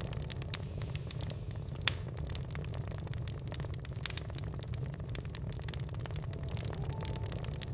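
Wood fire in a fireplace crackling: a steady low rumble under frequent small snaps and pops, with one sharp, loud pop about two seconds in.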